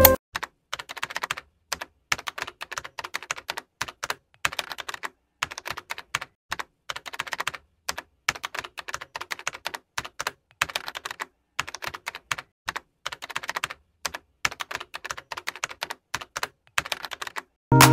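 Computer keyboard typing: quick runs of key clicks broken by short pauses.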